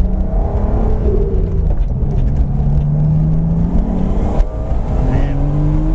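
Turbocharged BMW S52 straight-six in a 1999 M Coupe pulling steadily under way, a low drone that shifts slowly in pitch. A single knock comes about four seconds in, and then the engine note rises as the car accelerates.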